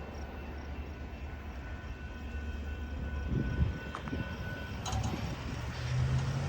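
Freight train rolling by with a steady low rumble, broken by a few knocks and clanks in the second half.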